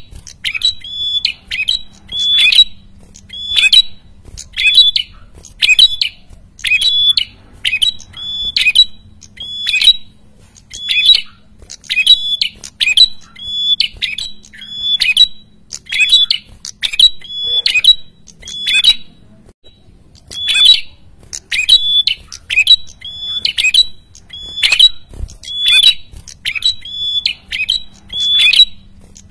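Caged prenjak kepala merah calling noisily and without let-up: a steady string of sharp, high calls, about one to two a second, with a short pause about two-thirds of the way through.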